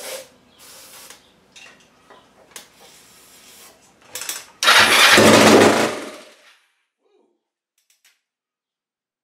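Unmuffled Kawasaki Ninja 500 (EX500) parallel-twin engine firing for about a second and a half and then dying away, after a few seconds of small handling noises and a short spray hiss. It catches briefly on a shot from an aerosol can but does not keep running, the carburettor not yet being sorted.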